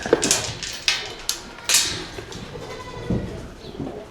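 Goats and sheep moving about in a barn: scattered rustles, knocks and hoof sounds, several sharp ones in the first two seconds.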